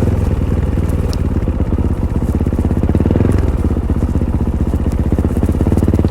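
Fantic Caballero 500's single-cylinder four-stroke engine running under way through its stock Arrow exhaust, a steady pulsing thump that picks up a little past halfway as the throttle changes.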